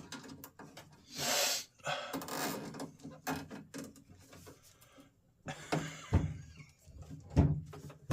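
Hand work on a door latch assembly: scattered small clicks and rustles, a short hiss about a second in, and a few dull knocks near the end.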